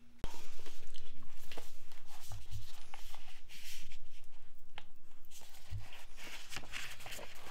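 A book being handled close to the microphone: cover and pages rustling, with many small clicks and taps. It starts suddenly about a quarter second in.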